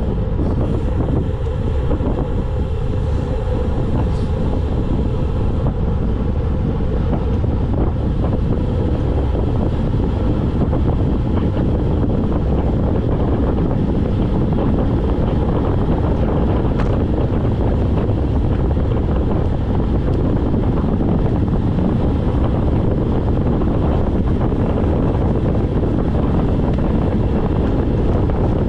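Steady wind rushing over the camera microphone of a road bike riding downhill at speed.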